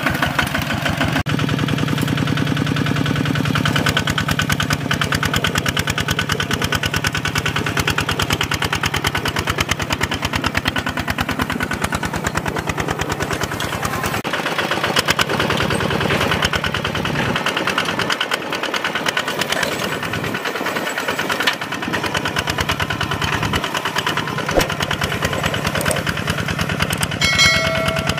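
Single-cylinder diesel engine of a walking tractor pulling a disc plough, running steadily with a rapid, even chug. A short bright chime sounds near the end.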